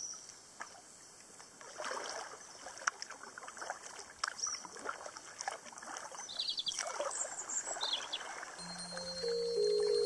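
Kayak paddle strokes in calm water: the blades dip, pull and lift out with repeated splashing and dripping. Music comes in near the end.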